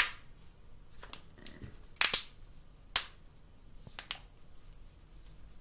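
Sharp plastic clicks from a Samsung Galaxy Note Edge being handled as its battery is fitted: about four distinct snaps, the loudest at the start and about two and three seconds in.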